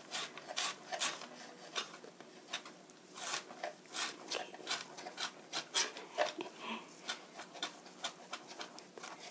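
Chef's knife mincing carrot on a cutting board: sharp taps of the blade striking the board, uneven, about two or three a second.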